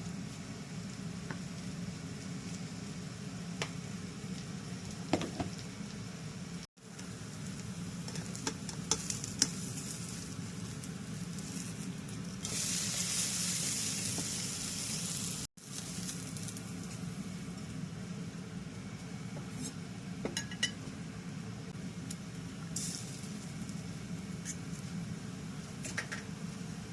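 Food sizzling in a frying pan, stirred with a utensil that clicks against the pan now and then. Partway through, the hiss turns louder for about three seconds, and the sound drops out briefly twice.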